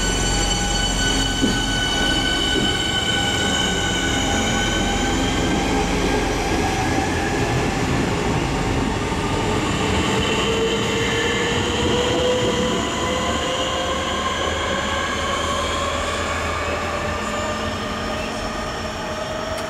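Class 465 Networker electric multiple unit pulling away, its traction motors whining as a set of steady high tones, with a lower tone climbing slowly in pitch as the train gathers speed, over the rumble of the wheels on the rails.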